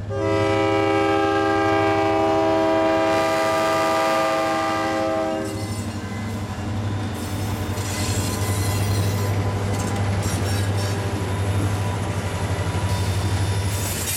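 Diesel freight locomotive's air horn sounding a long chord of several tones that cuts off about five and a half seconds in. Then the passing locomotives' low engine rumble gives way to covered hopper cars rolling by, with rhythmic wheel clatter and a faint high wheel squeal.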